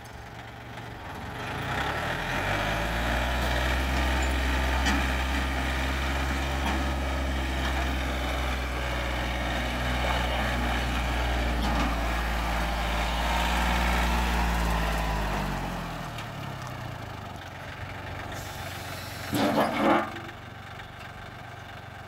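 John Deere 790 compact tractor's three-cylinder diesel engine revving up about two seconds in as the tractor drives off, running steadily at higher revs, then dropping back toward idle about fifteen seconds in. A brief louder noise comes near the end.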